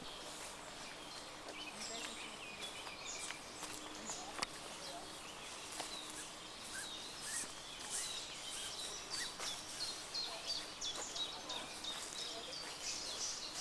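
Outdoor woodland ambience with many small birds chirping and singing, and a single sharp knock about four and a half seconds in.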